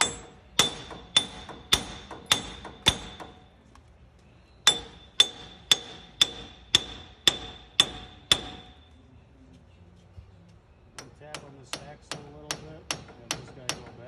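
Hammer blows on the rusted front wheel bearing hub assembly of a 2009 Toyota Tacoma, knocking the seized hub loose from the steering knuckle. First comes a run of six ringing metal strikes about every half second, then a pause and eight more. After a longer gap near the end there is a quicker series of lighter taps, about four a second.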